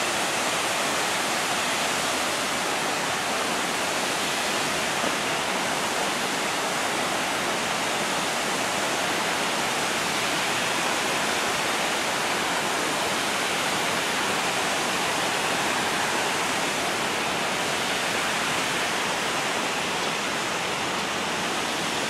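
Large man-made waterfall pouring over a tall concrete wall: a steady rush of falling water with a high drop.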